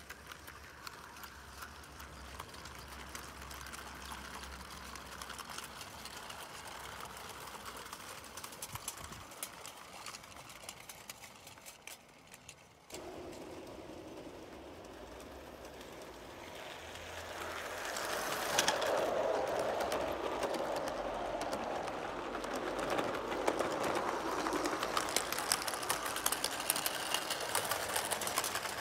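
O gauge model train running on garden track: a steady rhythmic clicking and clatter of wheels on the rails, growing louder in the last ten seconds as the wagons pass close by.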